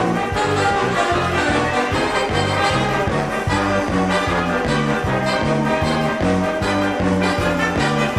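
A full wind band of brass and woodwinds plays a lively piece, with trumpets and trombones over a steady, evenly pulsing bass line.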